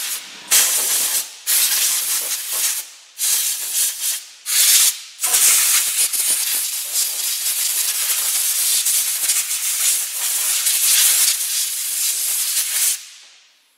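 Compressed-air blow gun blowing dust out of a car's rear disc brake: several short hissing blasts, then one long continuous blast of about seven seconds that fades out near the end.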